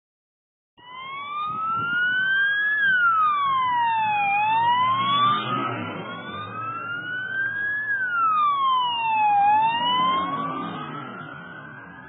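Emergency vehicle siren on a slow wail, rising and falling in pitch about every five seconds. It starts about a second in and grows fainter near the end.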